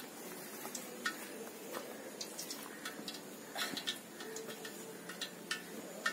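Scattered light clicks and taps of a knife against a steel plate as garlic is chopped, irregular and a few per second at most.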